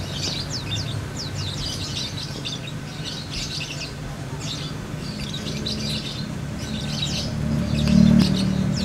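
Small birds chirping: many short, quick high chirps in irregular clusters. Underneath, a low steady hum swells in the second half and is loudest near the end.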